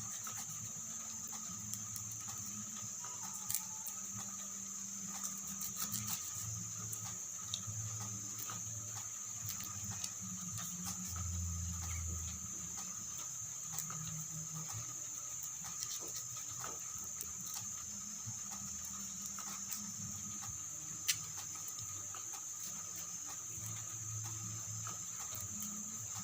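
Hand carving of a coconut shell: small scattered clicks and scrapes, with one sharper tick about 21 seconds in, over a steady high-pitched hum and a wavering low hum.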